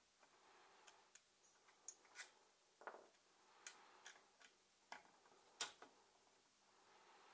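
Faint, irregular metal clicks and ticks from a screwdriver working the small bolts that hold the ignition coil on a 49cc two-stroke engine, with one sharper click about five and a half seconds in.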